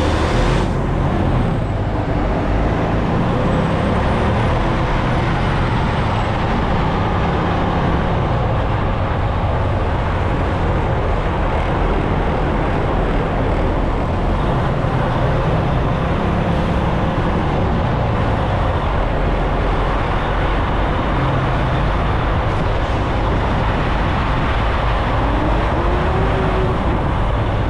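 Tractor-trailer truck driving at steady road speed: constant engine drone with road and tyre noise, loud and even throughout.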